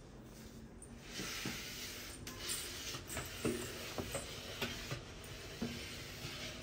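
Rubbish being cleared up: a patchy rustling hiss, starting about a second in, with scattered light knocks and clicks.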